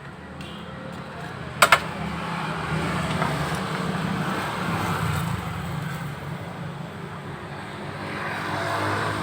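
Two sharp metal clinks close together about one and a half seconds in, then rustling and handling noise from parts being worked on, over a steady low hum.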